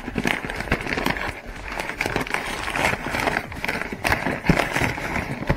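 Kraft paper flour bag crinkling and rustling as it is gripped and handled, a dense run of irregular crackles.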